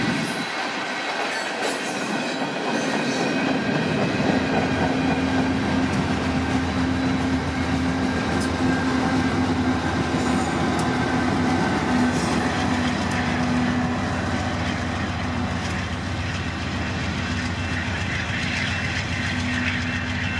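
Freight cars rolling past, their wheels clicking on the rails, followed by the train's rear distributed-power unit, a BNSF GE C44-9W diesel locomotive, passing with its engine running in a steady hum. The rumble then carries on as the train moves away.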